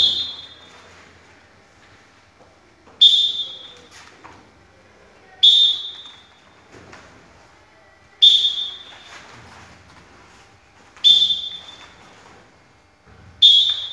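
A pea whistle blown in six short, shrill blasts, one every two and a half to three seconds, each cutting in sharply and dying away. It gives the timing for each move of a taekwondo form performed in unison.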